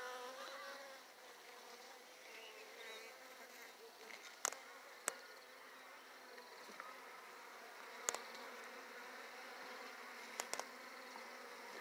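Honeybee colony humming steadily in an open hive, with several sharp taps of a metal hive tool on the wooden frames and box.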